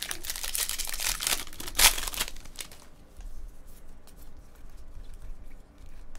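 Foil wrapper of a Bowman Draft baseball card jumbo pack being torn open and crinkled, loudest about two seconds in. Then softer clicks of the cards being handled.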